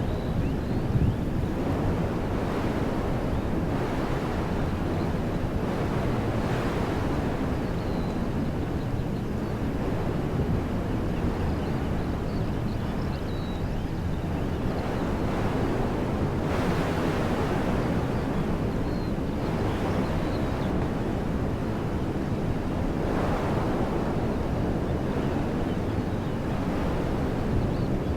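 Wind blowing through trees: a steady rushing that swells in gusts several times, with a low rumble of wind buffeting the microphone.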